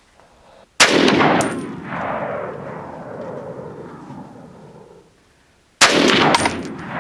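Two rifle shots from a Saiga 308 semi-automatic rifle firing Remington .308 180-grain rounds, about five seconds apart, each followed by a long echo that fades over several seconds. A brief high ring follows each shot by about half a second.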